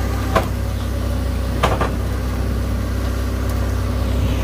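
Heavy diesel engine idling steadily with a deep, even drone, with a few sharp knocks: one about half a second in and a pair near two seconds.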